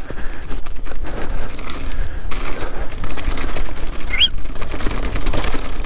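Canyon Sender downhill mountain bike running fast over a rough dirt and stone trail: tyres crunching and the bike rattling over the ground with a steady low rumble. A brief rising squeak sounds about four seconds in.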